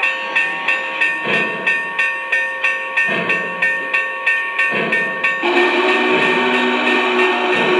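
Onboard sound system of a Lionel Vision Line Union Pacific Challenger O-scale model steam locomotive: steady steam chuffing at about three beats a second. About five and a half seconds in, the multi-tone steam whistle starts blowing and holds.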